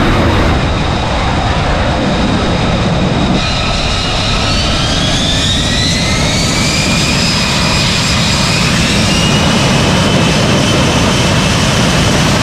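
F-35B Lightning II jet engines running loud and steady. From about three seconds in, a high turbine whine rises in pitch and then holds as a jet powers up for a short take-off.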